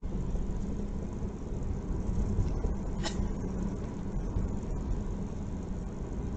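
Steady low rumble of a car driving, engine and road noise heard inside the cabin, with a constant low hum.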